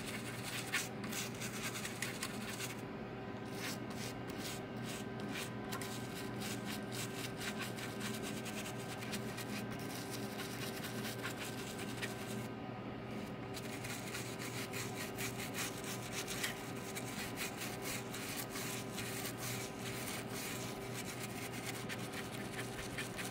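Toothbrush bristles scrubbing a corroded laptop motherboard soaked in foaming bathroom cleaner, a continuous scratchy rubbing made of many short back-and-forth strokes. The scrubbing is lifting corrosion from water damage off the board.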